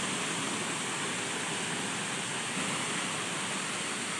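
Small waterfall splashing over rocks into a stream: a steady rush of water.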